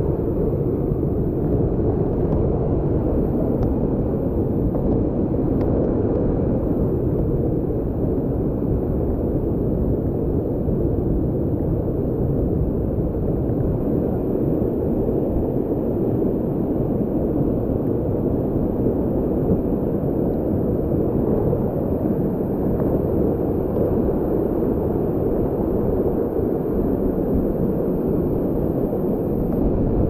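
Waterfall rushing: a steady, dense roar of falling water, heaviest in the low range and unchanging throughout.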